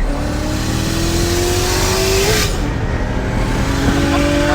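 Turbocharged car accelerating hard at full throttle. The engine pitch climbs steadily, drops sharply at an upshift about two and a half seconds in, then climbs again in the next gear.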